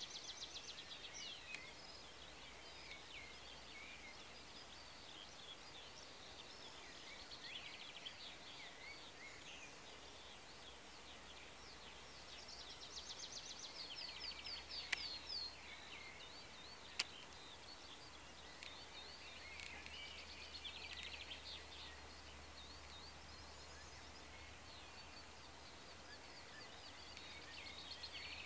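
Faint songbirds singing, with repeated chirps and quick trills throughout. Two sharp clicks about halfway through.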